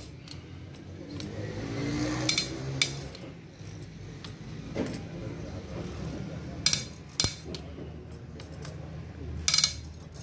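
Metal hand tools and engine parts clinking and clanking during engine dismantling: a handful of sharp metallic knocks a few seconds apart, two close together about two seconds in, another pair near seven seconds and one near the end, over a low steady hum.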